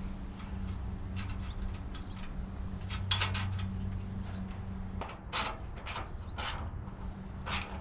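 Hands working on a motorcycle during reassembly: scattered clicks, knocks and scrapes of parts being handled, with several sharper separate knocks in the last few seconds, over a steady low hum.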